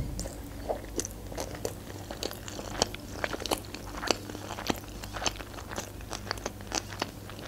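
Close-miked chewing of a sushi roll: many small, sharp mouth clicks and crunches, irregular, several a second.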